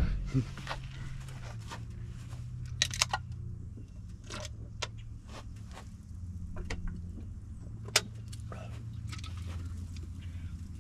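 A can of Coke being shotgunned and chugged through a hole punched in its side: scattered short gulps and clicks over a steady low hum, with one sharper click about eight seconds in.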